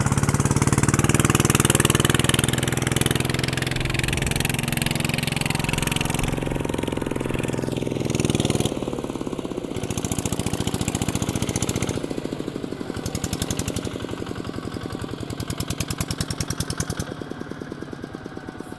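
Single-cylinder diesel of a Kubota RT140 two-wheel tractor running hard under load as it drags an implement through mud, each exhaust pulse clearly separate. The engine fades gradually over the last several seconds as the tractor moves away.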